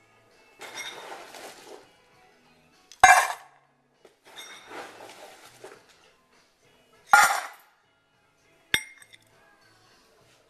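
Dishes clinking: three sharp clinks, about three, seven and nine seconds in, with two stretches of rattling, scraping noise between them.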